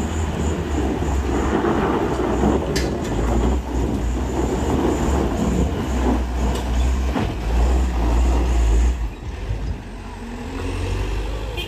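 Large vehicle's engine running loudly with a deep rumble as it passes close by, easing off about nine seconds in.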